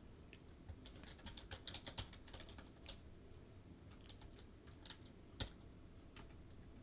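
Faint, irregular keystrokes on a computer keyboard, with a quick run of them in the first three seconds and a single louder click a little past five seconds in.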